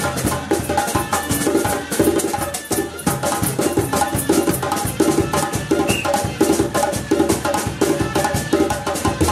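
Percussion music: drums and a woody struck instrument playing pitched notes in a busy, steady dance rhythm.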